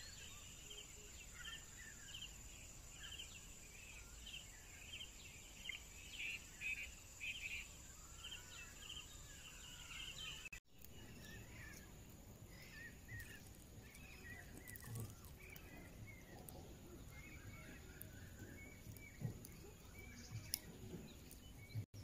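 Birds chirping faintly in open country, with many short repeated calls. A steady high whine runs under the first half. About halfway through, the birdsong changes abruptly to a different, slightly lower set of chirps.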